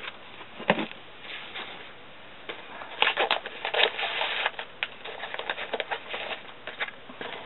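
Paper and sticker sheets being handled: crinkly rustling, with scattered light clicks and taps. A sharp tap comes just under a second in, and the rustling is loudest and thickest about three to four and a half seconds in.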